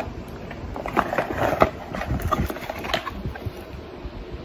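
Cardboard Echo Dot box being handled and opened, with scattered light taps, clicks and rustles as the power adapter and its cable are pulled out of the packaging.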